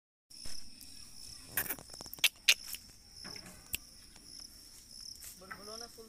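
Insects chirring steadily in a high pitch, cut by several short, sharp, loud sounds between about one and a half and four seconds in. Near the end a voice-like call with bending pitch begins.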